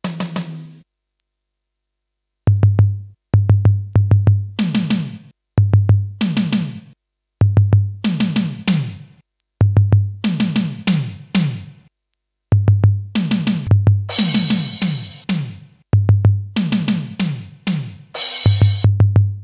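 Programmed drum-machine pattern in FL Studio playing back in short repeated phrases: deep kick drums under a roll of tom hits that drop in pitch. Two cymbal crashes come in the last third.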